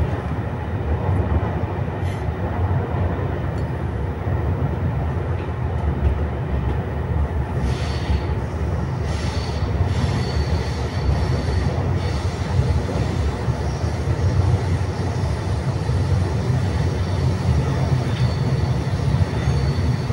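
TSR electric multiple unit running at speed through a tunnel, heard from inside the carriage: a loud, steady rumble of wheels on the track. A faint high wheel squeal joins in from about eight seconds in.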